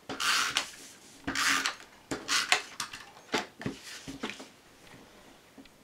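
Paper and cardstock being handled on a craft table: three short rasping swipes, then a run of lighter clicks and taps as the papers and a tape runner are moved and set down.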